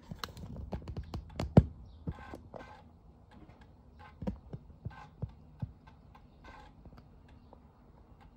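Commodore Amiga 600's internal 3.5-inch floppy drive reading a disk: a low motor whir under irregular clicks and knocks of the head stepping, the loudest about one and a half seconds in.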